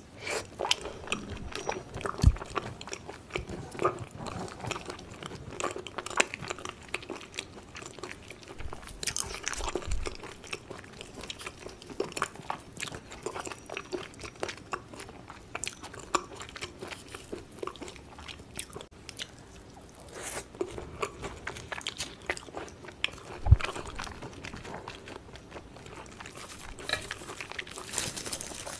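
Close-up eating sounds: chewing of raw beef yukhoe, wet mouth sounds and small crunches. There are two low thumps, one about two seconds in and a louder one past the middle.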